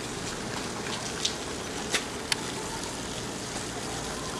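Steady hiss of background noise with three short clicks between about one and two and a half seconds in.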